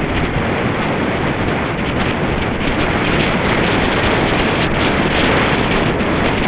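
Wind buffeting the microphone of a camera on a moving road bike: a steady, loud rush with no let-up.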